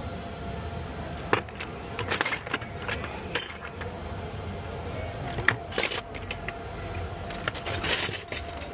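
Metal hand tools, such as sockets, clinking now and then as they are handled, over a steady background hum.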